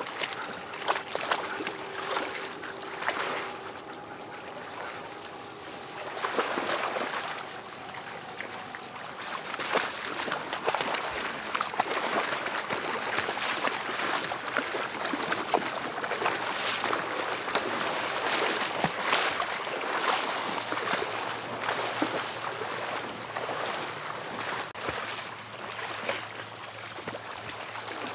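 People wading through shallow marsh water and tall grass: boots sloshing and splashing in water and mud, with stems swishing against clothing, in an uneven walking rhythm.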